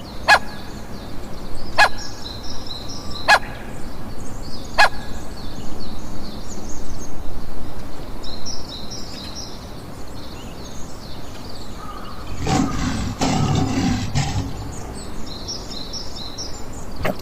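Small birds chirping continuously in quick high notes. Four sharp clicks come about a second and a half apart in the first five seconds, and a rough, noisy burst of about two seconds comes near the end.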